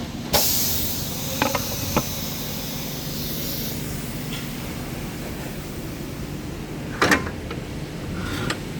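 A sudden burst of air hissing out that fades over about three seconds, with a couple of sharp metallic clicks. About seven seconds in comes a short clatter of knocks.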